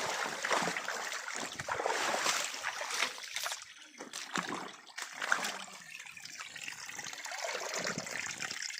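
Water splashing and trickling, with irregular sharp splashes that are louder in the first few seconds before settling into a steadier rush.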